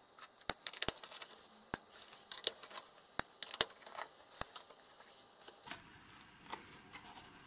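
Sharp metallic clicks and clinks from the metal cover plate and end cap of an aircraft emergency locator transmitter's case being handled and taken off. There are about a dozen in the first four and a half seconds, then only faint handling noise.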